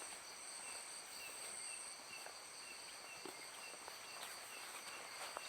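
Night insects such as crickets keeping up a steady, high-pitched trilling, with a shorter chirp repeating about twice a second.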